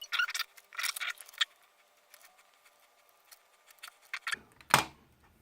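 Light clicks and taps from handling small plastic controller parts and tools: a quick run of them in the first second and a half, a few faint ticks after, and a sharper click near the end.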